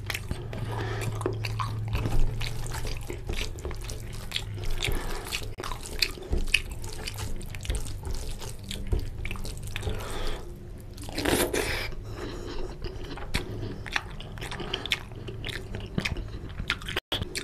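Close-miked eating sounds: wet chewing and lip smacks, and fingers squishing rice into oily curry on a steel plate, in many small clicks and squelches. One louder wet burst comes about two-thirds of the way through.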